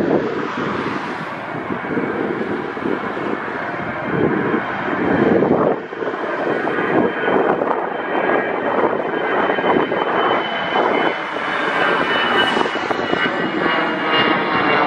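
Jet airliners passing low overhead, their engines running loud with a thin steady fan whine, and gusts of wind buffeting the microphone. First an Airbus A320, then after a brief break about six seconds in, a second jet.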